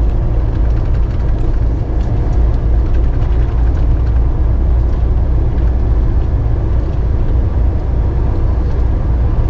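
Steady low rumble of a car driving at freeway speed, engine and tyre noise heard from inside the cabin.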